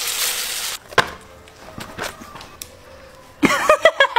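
A brief hissing rush at the start and a sharp click about a second in, then a young man laughing loudly in several quick bursts near the end.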